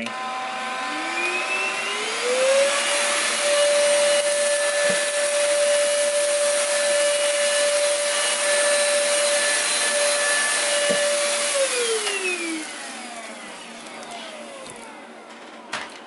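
BlitzWolf BW-AR182 cordless stick vacuum running on its high setting with its brush head on carpet: the motor spins up with a rising whine about a second in, runs steadily, then is switched off near twelve seconds and winds down with a falling whine.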